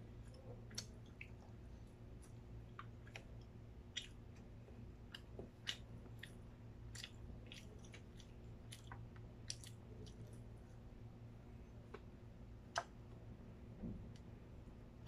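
Quiet chewing of a mouthful of chicken and rice, with scattered faint, sharp mouth clicks and smacks, over a steady low hum.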